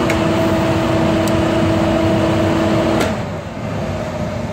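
Shrink tunnel's fans and motors running: a steady rush of air with a hum over it. About three seconds in there is a click and the hum drops out, leaving the fan noise slightly quieter.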